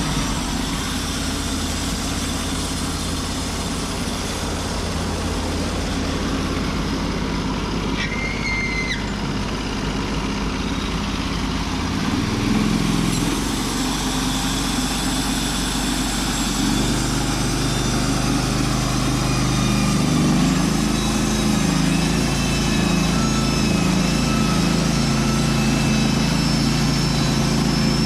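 Norwood portable bandsaw sawmill's engine running steadily while the mill saws an ash log into boards, its pitch shifting a few times as the load on the blade changes. A brief high squeal sounds about eight seconds in.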